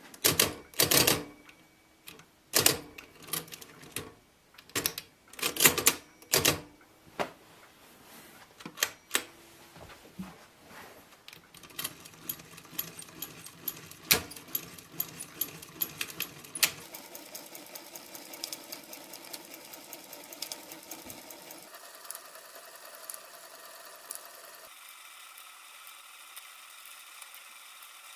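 Facit C1-13 hand-cranked mechanical calculator: a series of loud, separate clacks as keys and levers are set, then from about a third of the way in the crank turns over and over, giving quicker clicking that settles into a steady clattering whir. The machine is stuck endlessly subtracting zero, the sign of an attempted division by zero.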